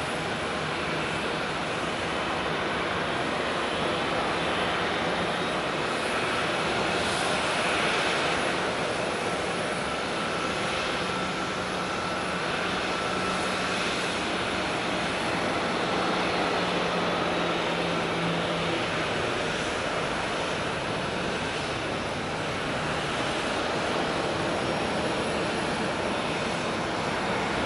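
Airliner jet engines running with a steady rushing noise. A faint low hum underneath fades out about two-thirds of the way through.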